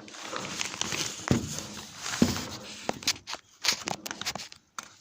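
A run of irregular clicks and knocks, like handling and tool work, with two louder knocks about a second and two seconds in.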